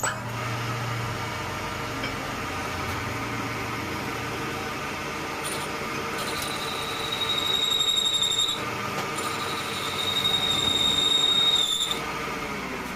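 A machine running steadily, with a high, thin squeal that comes in twice, each time for about two to three seconds.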